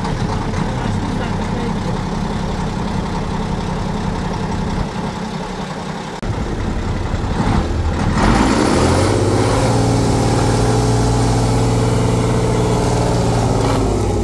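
Praga 6x6 trial truck's engine running at low revs, then revving up about eight seconds in and held at high revs under load as the truck climbs a steep bank.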